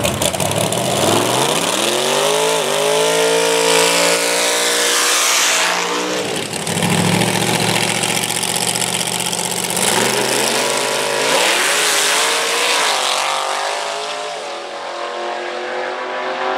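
Nitrous-fed Chevy Bel Air drag car's engine at full throttle: loud, in several long rising sweeps, each breaking off and starting again lower, as on gear changes. It grows fainter toward the end as the car runs away down the strip.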